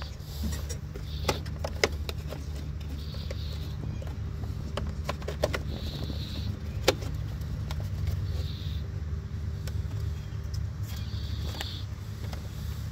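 Scattered clicks and knocks of hands working on a riding lawn mower's engine, the sharpest about seven seconds in, over a steady low hum.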